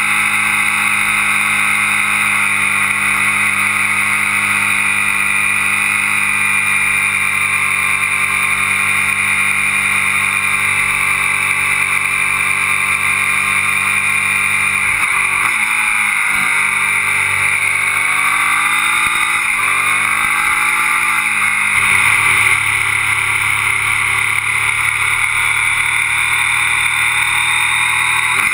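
Onboard sound of a motorcycle riding along: the engine holds a steady note under wind and road rush. About halfway through, the engine note drops sharply and climbs back, twice.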